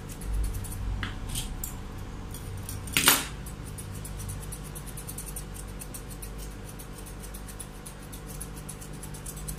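Grooming scissors snipping the fur on a Pomeranian's face, a quick run of light metallic snips, with one louder, short noise about three seconds in.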